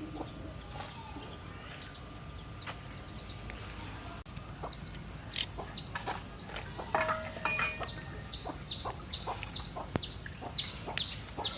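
Domestic chickens clucking, with a quick run of short, high, falling cheeps in the second half and scattered light clicks.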